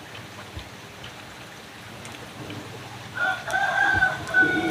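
A rooster crowing once, starting about three seconds in and held past the end, over a steady hiss like light rain.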